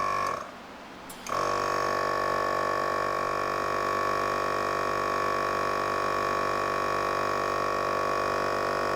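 A VIAIR 450P-RVS 12-volt portable air compressor runs with a steady, pretty quiet electric hum and whine while it inflates a motorhome's rear dual tire. The sound drops away briefly about half a second in, then carries on unchanged.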